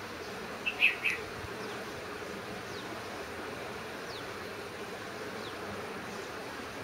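Steady outdoor hiss with an insect-like buzz, broken about a second in by three short, sharp high chirps in quick succession, and a few faint falling peeps afterwards.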